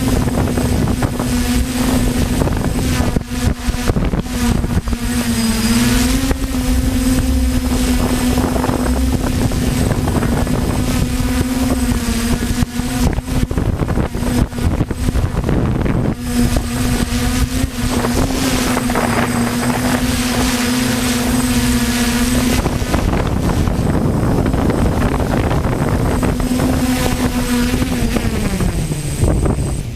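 DJI F450 quadcopter's four brushless motors and propellers humming steadily in flight, the pitch dipping briefly and then sinking near the end as the motors slow down. Gusty wind buffets the microphone underneath.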